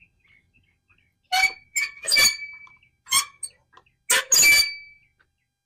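Blades of a Greenworks push reel mower, turned by hand, scraping past the bed knife in about five short metallic squeaks with a brief ring, snipping a paper test strip. It is the squeak of a dry, freshly tightened reel-to-bed-knife contact, which goes away once mowing wets the blades.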